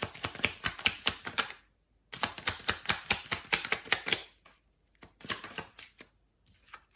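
A deck of tarot cards being shuffled by hand: quick, even card slaps, about eight a second, in two runs broken by a short pause, then a few scattered slaps near the end.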